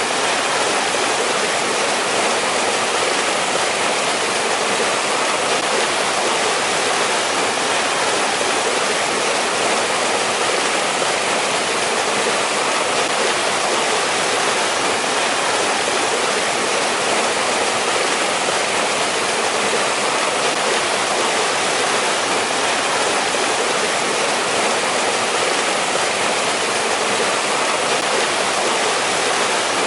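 Mountain stream rushing over rocks: a steady, unbroken water noise.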